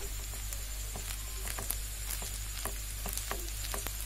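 Spatula stirring cooked rice with spices in a hot oiled pan: a steady light sizzle with scattered clicks and scrapes of the spatula against the pan.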